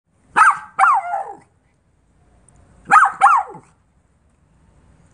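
A small dog yapping during play-fighting: two high-pitched yaps in quick succession, then another quick pair about two and a half seconds later.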